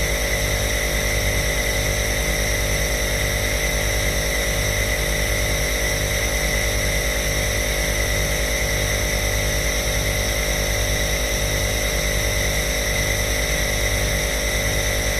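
Compressor nebulizer running steadily: an even motor hum and vibration with a constant hiss of air and mist.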